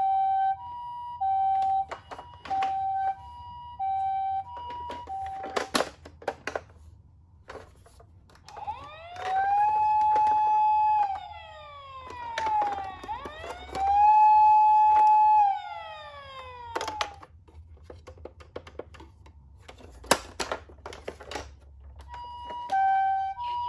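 Electronic siren of a toy ambulance minicar. It starts with a two-tone hi-lo pattern, breaks off into clicks and knocks, and then plays two long wails that rise, hold and fall. Near the end it goes back to the two-tone pattern.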